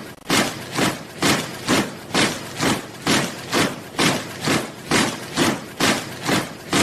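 A troop of soldiers marching in step, their footfalls landing together as a steady beat of about two steps a second.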